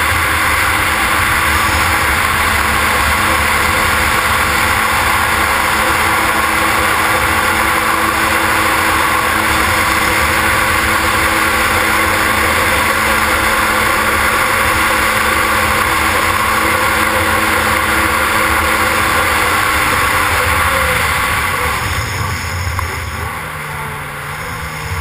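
Yamaha SuperJet stand-up jet ski's two-stroke engine running steadily at speed, with wind and water rushing past a helmet-mounted microphone. Near the end the engine pitch falls and the sound drops as the ski slows.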